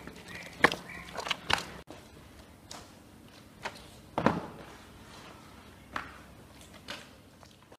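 Soft dough being kneaded and gathered by hand after oil is poured on it, giving a few scattered soft thumps and knocks. The loudest thump comes a little past four seconds in.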